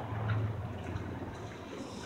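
Kawasaki Teryx S LE side-by-side's V-twin engine running at low revs: a steady low hum under a noisy hiss, easing off a little after the first second.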